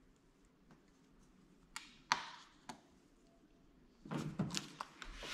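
Faint handling noises from trimming tint film on a car tail light: a few sharp clicks and taps about two seconds in, then a short burst of rustling and clicks about four seconds in.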